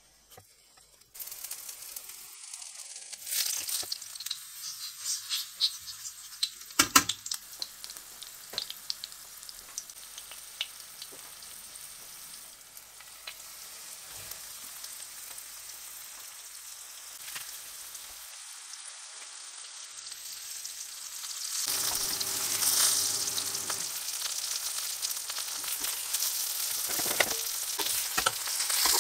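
Garlic cloves and floured, prosciutto-wrapped chicken breast frying in olive oil in a nonstick pan: a steady sizzle that starts about a second in, with scattered crackles and a sharp click about a quarter of the way through. The sizzle grows louder about three-quarters of the way through.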